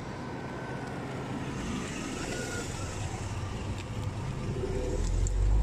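Mercedes-Benz S300L's engine running, a steady rumble that grows louder near the end.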